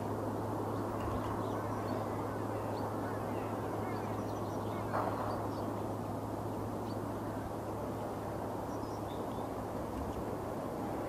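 Outdoor ambience: a steady, even distant roar with scattered small bird calls over it, and a short louder sound about five seconds in.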